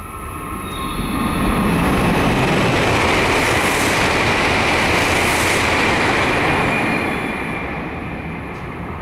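Kyushu Shinkansen N700-series (7000/8000) train running through the station non-stop at about 260 km/h: a rush of air and wheel-on-rail noise that swells about a second in, holds for some five seconds, then fades away near the end.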